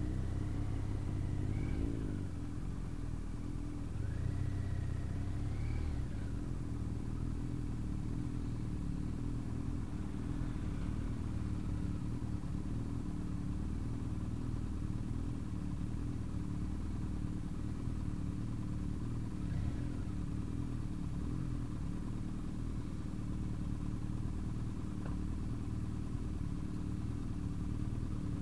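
BMW RT motorcycle's boxer-twin engine, its note rising and falling over the first few seconds, then idling steadily.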